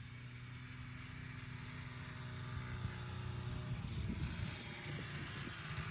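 Two-stroke snowmobile engine running steadily, growing gradually louder over the first few seconds.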